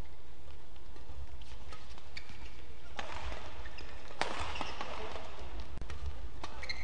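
Badminton doubles rally: sharp racket hits on the shuttlecock, the loudest about four seconds in, and short squeaks of court shoes, over a steady low hum of the hall.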